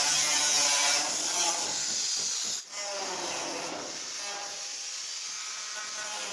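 Stainless steel sheet being cut with a power cutting tool: a loud, steady hiss that breaks off sharply a little under three seconds in, then carries on quieter.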